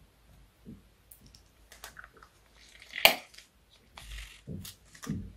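Plastic piping bag crinkling and squelching as the last of the slime is squeezed out and the bag is crumpled in the hand, a run of small crackles with one sharp crackle about three seconds in and soft wet squelches near the end.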